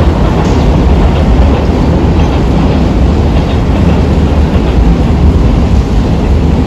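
EF210-hauled freight train rolling past at close range: a loud, steady rumble of wheels running on the rails.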